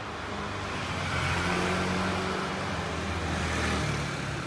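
Street traffic: a motor vehicle passing, its engine hum and road noise swelling about a second in and easing off near the end.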